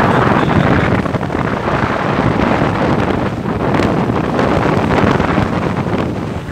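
Loud, irregular rumbling rush of wind buffeting the microphone, with no clear tone or rhythm.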